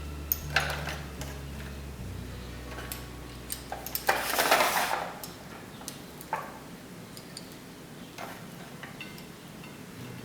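Kitchen food-prep handling: scattered knocks and clicks of utensils and zucchini on the work surface, with one short scraping rustle about four seconds in.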